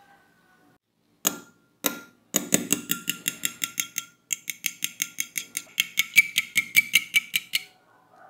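A thin metal utensil beats raw eggs in a small glass bowl, clinking against the glass with a ringing tone. Two single taps come first, then a fast, even beating of about five clinks a second, with a brief pause midway.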